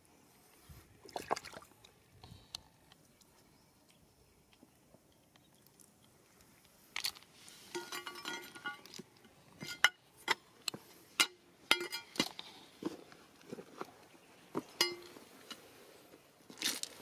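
Stones clicking and clinking against one another in sharp, irregular knocks, a few of them ringing briefly. Only a few knocks at first, then much busier from about seven seconds in.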